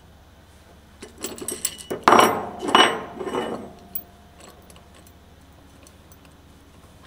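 Steel parts of a bearing puller and splitter clinking and clanking against each other and the motor shaft as they are handled and taken apart. A clatter of metal clinks starts about a second in, with the two loudest ringing clanks a little later, then dies away.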